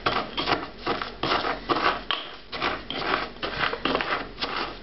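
Pestle grinding garlic and coarse salt in a mortar: a steady run of gritty scraping strokes, about three a second.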